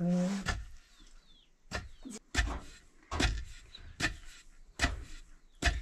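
A long pestle pounding grain in a floor mortar by hand, a dull thud about every 0.8 seconds.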